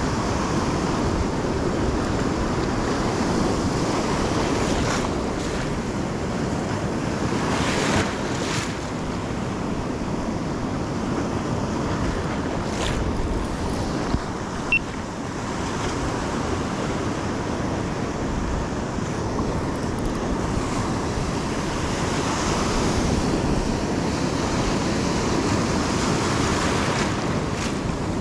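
Rough surf breaking and washing over rocks, with wind buffeting the microphone: a steady rush of noise. Two brief sharp knocks about halfway through.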